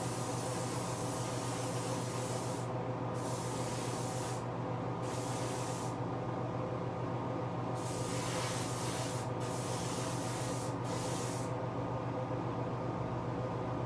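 Clear coat being sprayed in about six short bursts of hiss, each lasting between under a second and about two and a half seconds, with the last one ending shortly before the end. A steady mechanical hum runs underneath.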